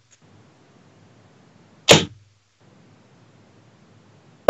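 Steel-tip darts thudding into a bristle dartboard: one sharp, short strike about two seconds in, and the next dart landing right at the end. A faint hiss lies between the throws.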